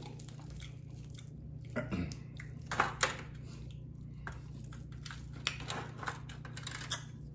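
Crispy fried chicken wing crackling and snapping as it is pulled apart by hand, a run of irregular sharp cracks, the loudest about three seconds in, over a low steady hum.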